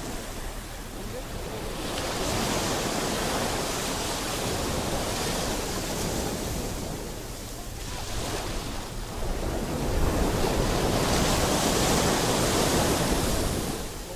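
Sea surf washing onto a beach, swelling twice, with the second surge louder from about ten seconds in.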